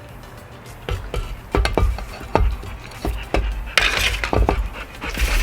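Accessories and packaging of an unboxed floodlight camera being handled: a string of irregular clicks and knocks, starting about a second in, with a brief rustle of packaging about four seconds in.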